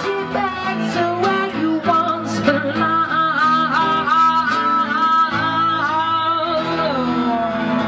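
A woman singing live to her own acoustic guitar, holding one long wavering note through the middle.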